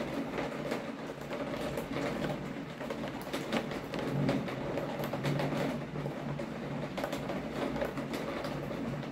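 Steady rain with wind: many close drops ticking sharply on a nearby surface over a low, continuous rushing.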